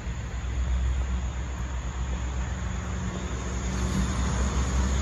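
Steady low rumble of a nearby motor vehicle with a faint engine hum, growing a little louder near the end.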